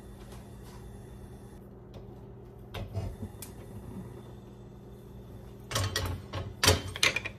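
Stovetop handling on a gas cooktop: a few light clicks about three seconds in, then a quick run of sharp clicks and clunks near the end as the burner knob is worked and the stainless steel frying pan is taken by its handle and shifted on the grate.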